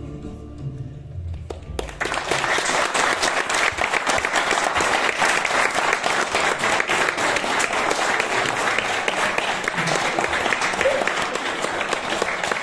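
The last notes of a song die away, and about two seconds in a group of people breaks into applause that keeps going steadily.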